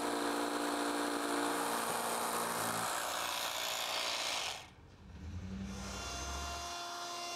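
Cordless jigsaw cutting a circle out of 3/4-inch board, running steadily, then cut off suddenly a little over halfway in. A quieter, lower motor sound follows.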